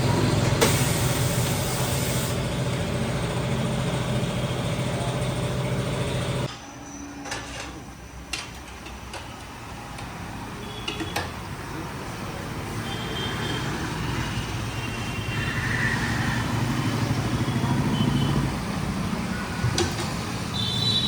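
A vehicle engine runs steadily, then cuts off abruptly about six seconds in. Quieter street noise follows, with a few short high-pitched tones and another engine sound that slowly swells and then drops away near the end.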